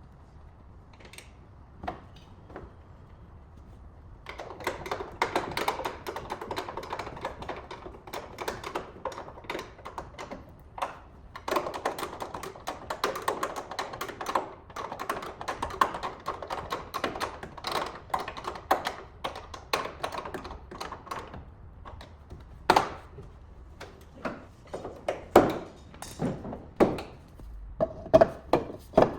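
Hands handling hard objects: a long stretch of rubbing or rustling scattered with small clicks, then a run of separate sharp clicks and knocks near the end.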